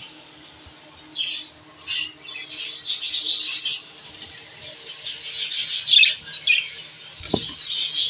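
Budgerigars chattering, scratchy high chirps coming in several spells, with a short knock near the end.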